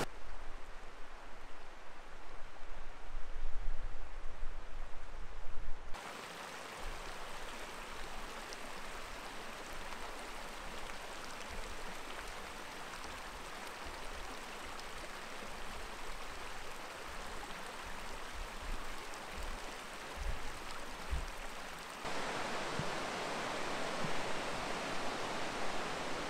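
Mountain creek running over rocks: a steady hiss of flowing water. A low rumble sits under it for the first six seconds, and the level changes abruptly about six seconds in and again near the end.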